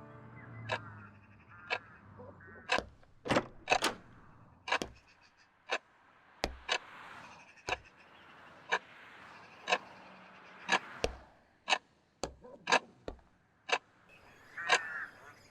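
A series of sharp, irregular clicks and knocks, roughly one a second, with a few brief squeaks among them.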